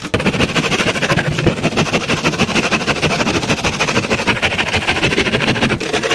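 Graco texture sprayer running with a fast, even pulsing; it starts abruptly and cuts off about six seconds later.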